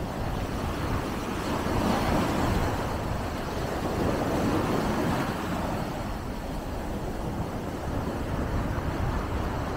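Small waves breaking and washing up a sandy beach in a steady rush of surf, swelling and easing as each wave comes in.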